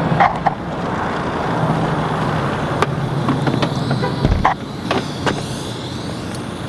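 A motor running with a low steady hum for a few seconds, which stops with a thump, over a noisy background with scattered sharp clicks and knocks.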